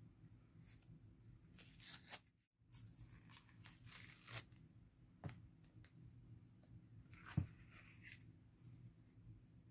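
Faint, scattered peeling and rustling as tape is pulled off new rolls of satin ribbon, with a soft knock about seven seconds in.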